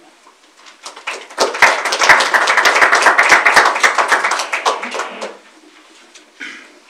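Small audience applauding: a few seconds of hand clapping that starts about a second in, swells, and dies away before the end.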